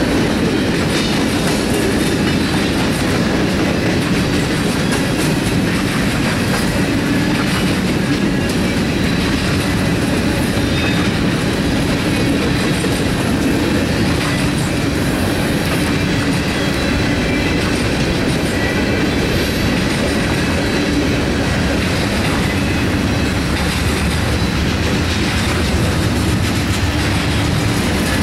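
Freight train of covered hopper and gondola cars rolling steadily past, a continuous rumble with the clatter of steel wheels on the rails.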